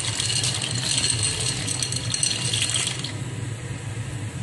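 Dry penne pasta poured from a glass bowl into a pan of boiling water: a dense rattling patter of the pieces for about three seconds, then the softer sound of the water boiling.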